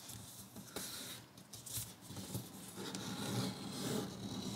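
Sheet of origami paper rustling and crinkling as it is folded by hand, with fingers rubbing along a crease and a few short crisp paper clicks; louder in the last second and a half.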